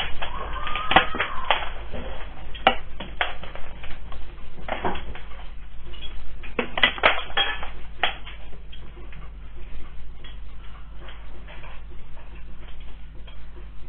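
Dishes and loose objects clattering and clinking as a building shakes in an earthquake: dense knocks and clinks, thickest about a second in and again around seven seconds in, thinning toward the end, over a steady low hum.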